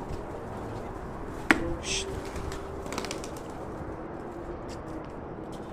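Domestic pigeons cooing, low and drawn out, with a single sharp click about a second and a half in and a brief hiss soon after.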